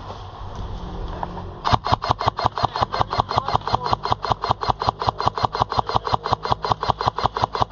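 Airsoft gun firing a long full-auto burst, about seven shots a second, starting under two seconds in.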